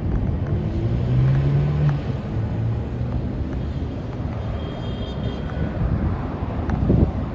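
Road traffic: vehicles running along a city street, with a brief low drone about a second in and a short knock near the end.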